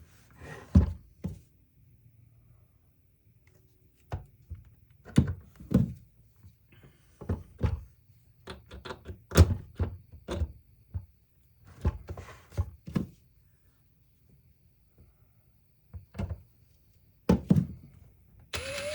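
Irregular thunks and knocks of tools and parts being handled on a workbench while a power tool is taken apart, then a drill starting to whir with a rising whine just before the end.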